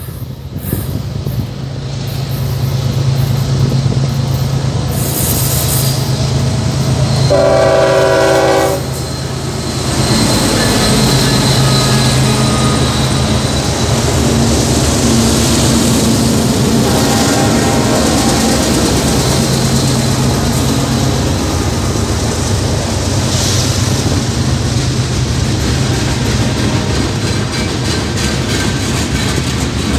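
Union Pacific diesel freight locomotives approaching and passing close by, engines running with a steady low drone. About a quarter of the way in, the locomotive horn sounds one blast of about a second and a half. Later, loaded freight cars roll past with wheels clicking over the rail joints.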